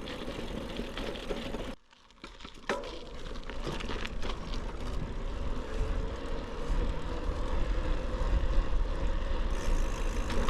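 Wind noise and riding noise on a GoPro Hero 12 Black's microphone under a foam windscreen while cycling, a steady rushing with a strong low rumble. The sound drops out almost completely for under a second about two seconds in, then comes back.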